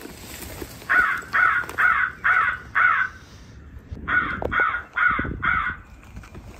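Crow caws: five harsh caws in a quick, even series, a short pause, then four more.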